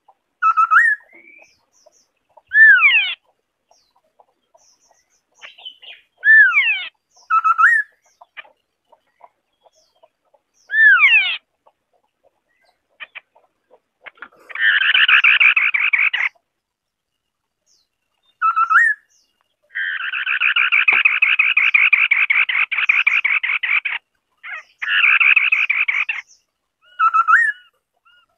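White-browed scimitar-babbler calling: short whistled notes that swoop up or down, scattered between longer dry rattling chatters, the longest running about four seconds.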